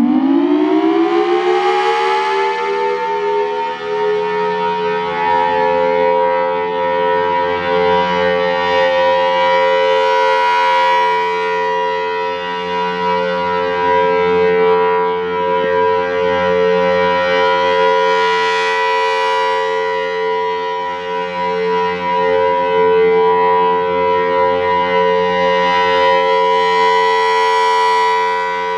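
Federal Sign & Signal Thunderbolt 1000 blower-driven outdoor warning siren sounding a steady full alert tone. It finishes winding up to full pitch about two seconds in, then holds that pitch, growing louder and softer about every eight to nine seconds as the rotating siren head sweeps past.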